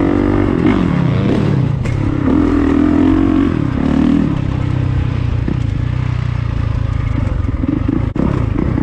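Four-stroke Honda CRF dirt bike engine ridden on a motocross track, its revs rising and falling repeatedly as the throttle is opened and rolled off. The sound briefly cuts out about eight seconds in.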